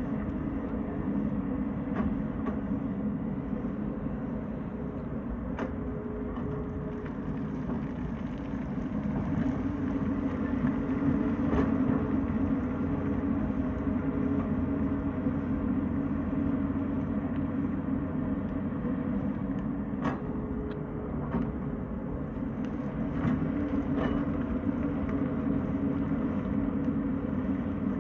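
Tata Hitachi excavator's diesel engine running steadily, getting louder for a few seconds around ten seconds in, with a scattering of sharp knocks.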